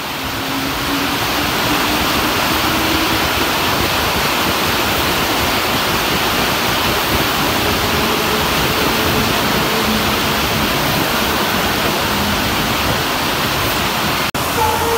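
Heavy monsoon rain pouring steadily, a dense hiss of water that fades in at the start. A faint low hum from the electric suburban train sits under it. The sound cuts out briefly near the end.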